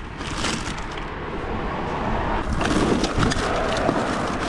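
Handling noise from a metal-framed rolling cart of plastic drawers: a black plastic bag rustling and the drawers and frame rattling and knocking as it is tipped and moved.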